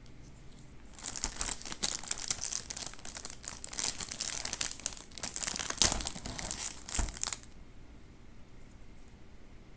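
Plastic cookie-pack wrapper crinkling and tearing as gloved hands pull it open, starting about a second in and stopping after about six seconds.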